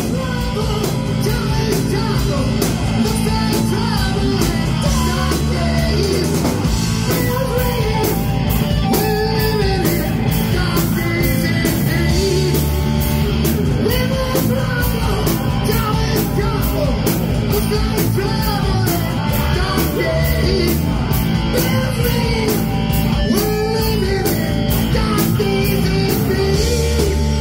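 Live heavy metal band playing loud, with electric guitars, bass and a drum kit under a sung vocal line.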